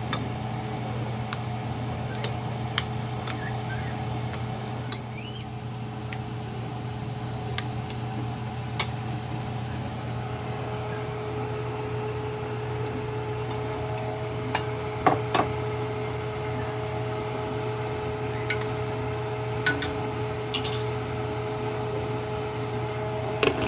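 Steady hum of a running kitchen appliance, with a second, higher hum joining about halfway through. Light clicks and clinks of glass and utensils come now and then.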